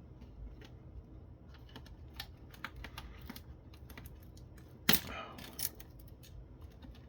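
Small clicks and taps of plastic parts and wiring being handled while taking apart a conference phone base station, with one sharp, louder clack about five seconds in and a smaller one just after.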